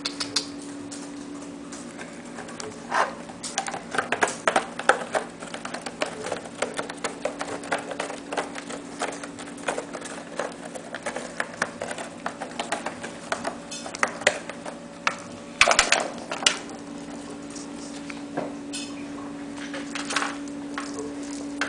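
Kittens at play: a plastic ball clattering and clicking around the track of a circular cat track toy as they bat at it, mixed with paws skittering on a tile floor, in irregular bursts of taps that are busiest in the middle and loudest a little past halfway. A steady low hum runs underneath.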